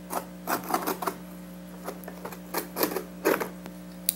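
Folding utility knife scraping and slicing through packing tape on a cardboard box in short, irregular strokes, with a sharp click near the end, over a steady low hum.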